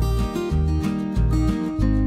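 Background music with strummed acoustic guitar over a steady pulse of low bass notes.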